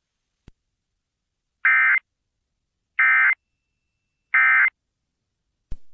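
Emergency Alert System end-of-message (EOM) data signal: three short bursts of digital screech about a second apart, marking the end of the alert.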